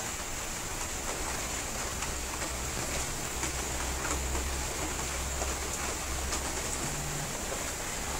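Steady background hiss with a low hum underneath and a few faint ticks.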